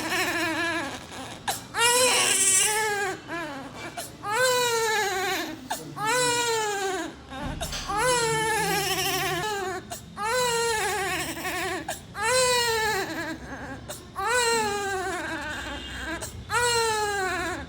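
A premature, low-birth-weight baby of about 1.5 kg crying in repeated wails, about one every two seconds, each rising briefly and then falling in pitch.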